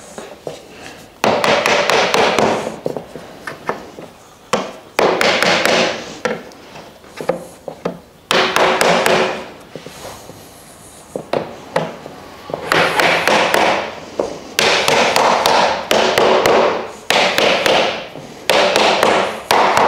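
A mallet tapping a wooden slatted shelf down onto the uprights of a wooden plant stand. The taps come in about seven quick runs, each a second or so long, with short pauses between.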